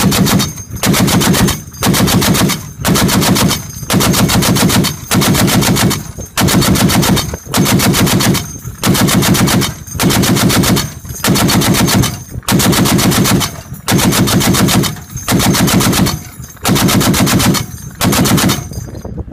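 M2 Browning .50 caliber heavy machine gun firing short bursts back to back, about one burst a second, each burst a rapid string of heavy shots. The firing stops near the end.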